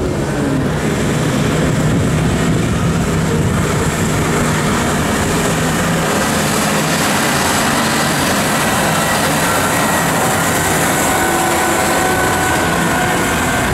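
Big farm tractors' six-cylinder diesel engines running under load, pulling heavy loaded trailers. A steady low engine note in the first half gives way to higher whining tones in the second half.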